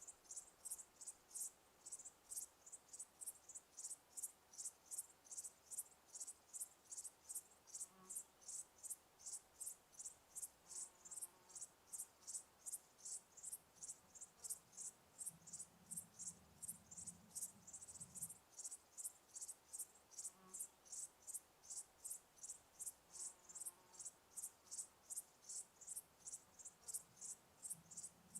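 A cricket chirping steadily and high-pitched, about two to three chirps a second, with a faint low rumble briefly partway through.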